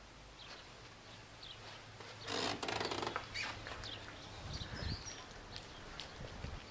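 A sliding door rolling open along its track with a rough, rattling scrape lasting under a second, followed by a few low thuds of footsteps.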